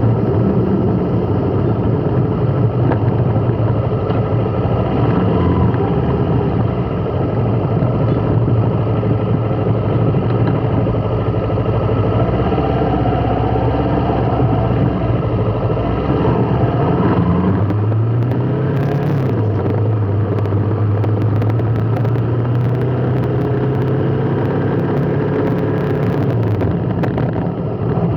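Vehicle engine running steadily, its pitch rising briefly about 17 seconds in and then holding.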